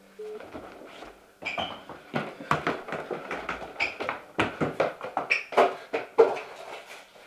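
A phone's repeating busy tone cuts off at the start. Then comes a quick, uneven run of heavy thuds and knocks, about two or three a second: hurried footsteps down a wooden staircase.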